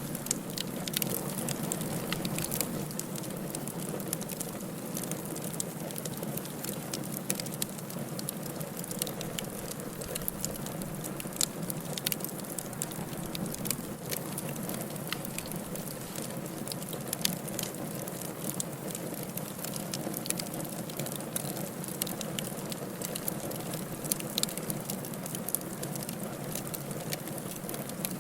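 Firewood burning in a fireplace: a steady low rush of flames with frequent sharp crackles and pops scattered irregularly throughout.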